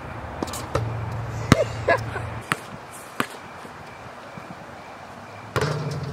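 Basketball thudding on an outdoor court: several sharp, irregularly spaced hits, the loudest about a second and a half in.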